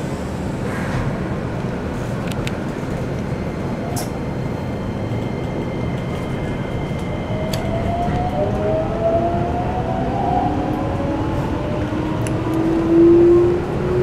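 Running noise inside a Keikyu New 1000 series train: a steady rumble of wheels on rail, joined about halfway through by the Toyo IGBT-VVVF inverter and traction motors whining in several tones that climb in pitch, loudest near the end.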